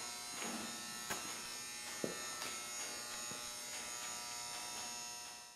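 Steady electrical buzz in a small room, with a few faint clicks; it fades out at the end.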